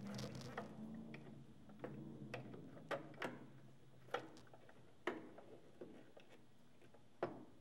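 Long, thin Phillips screwdriver turning screws out of a plastic 8-track player housing: faint, irregular clicks and ticks as the bit works in the screw heads.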